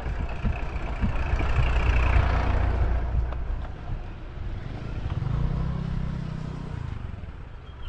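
A motor vehicle engine running close by, loudest about two seconds in and then fading. A steadier, lower engine hum follows from about five to seven seconds in.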